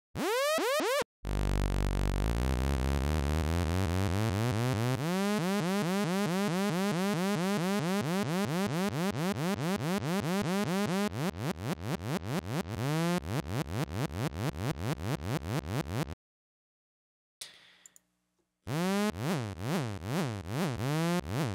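Zebra2 software synthesizer tone with its pitch swept by a looping multi-stage envelope, giving fast repeating pulses and swooping glides. It cuts off about 16 seconds in, and after a two-second gap comes back as a steady run of up-and-down pitch swoops, about three a second.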